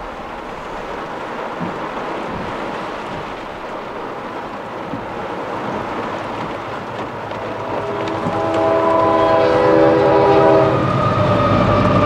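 Heavy rain beating on a car's roof and windshield, heard from inside the cabin. About eight seconds in, a Canadian Pacific diesel locomotive's horn sounds one long chord of several notes for about three seconds, with the locomotive's rumble growing louder as it reaches the crossing.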